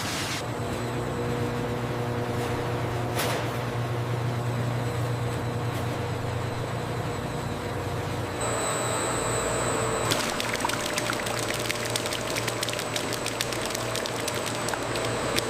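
Food-processing line machinery running with a steady low hum and a rushing, watery noise. About ten seconds in, a fast rattle of clicks starts and continues.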